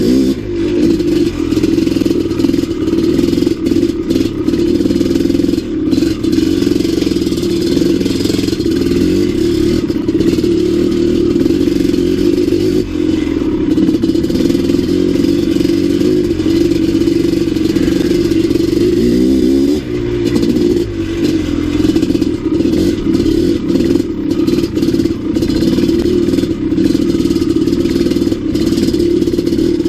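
Maico 700 big-bore two-stroke single-cylinder dirt bike engine running under load while riding a trail, its pitch mostly steady with one dip and rise in revs about two-thirds of the way through.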